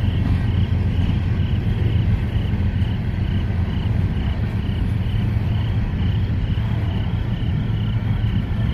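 Freight train hopper cars rolling past with a steady low rumble, while an insect chirps evenly about twice a second.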